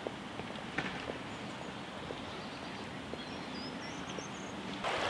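Outdoor park ambience: a steady low hiss with scattered faint clicks, and a small bird chirping faintly and high-pitched for a second or so before the end. Just before the end the sound cuts abruptly to the louder rushing of a river.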